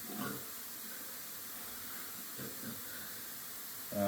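Steady faint hiss of background noise, with a couple of brief, faint murmured voice sounds.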